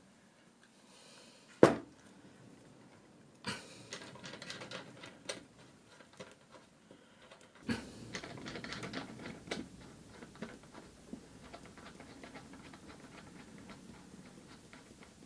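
Hand handling of small metal ball-screw parts: one sharp click about two seconds in, then scattered light clicks and rattles.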